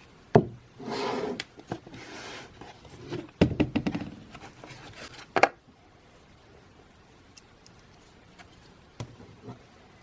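Hard objects being handled: a sharp click, short scraping or rustling noises, then a cluster of knocks and clicks and another sharp click, with two faint ticks near the end.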